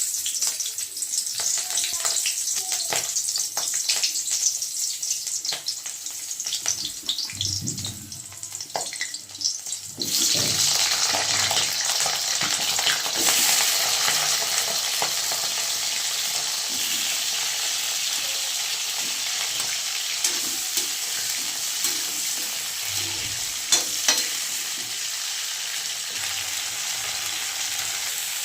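Food frying in hot oil in a pan for a cauliflower stir-fry (gobhi bhujia), sizzling with many sharp crackles and stirring clicks. About ten seconds in, it jumps to a louder, steady sizzle that keeps on with occasional stirring clicks.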